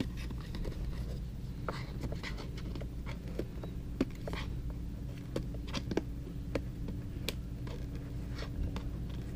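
Retail box and packaging being handled, with scattered light clicks, taps and rustles about every second, over a steady low hum.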